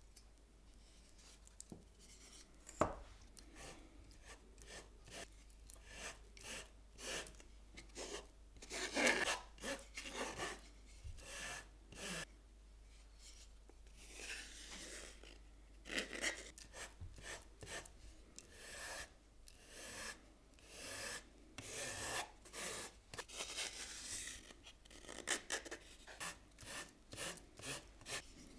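Irregular rubbing and scraping strokes of hand work at a bench, coming in clusters of quick strokes with short pauses between them.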